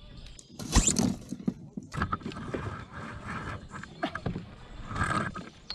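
Fishing rod and tackle handled aboard a plastic fishing kayak: a string of knocks, clicks and rustles, loudest about a second in.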